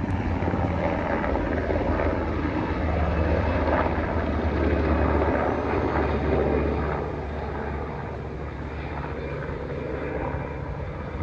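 Japan Self-Defense Force helicopter flying overhead: a steady low rotor and engine drone, easing a little after about seven seconds.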